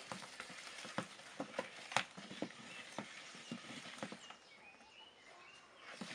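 Wooden stirring stick working a thick liquid-soap mixture in a plastic basin, giving irregular light knocks and clicks, the loudest about two seconds in.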